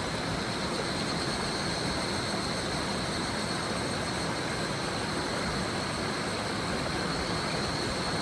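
Steady rush of a flowing river, with evening cicadas (higurashi) calling as a continuous high-pitched tone over it.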